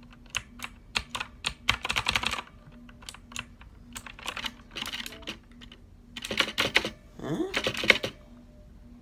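Keys of an onn RGB mechanical gaming keyboard clicking under the fingers: scattered single key presses and short rapid flurries of keystrokes, one about two seconds in and more from about six seconds on.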